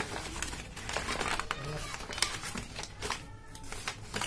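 Brown-paper courier mailer bag crinkling and rustling as it is handled and opened, in a run of short, irregular crackles.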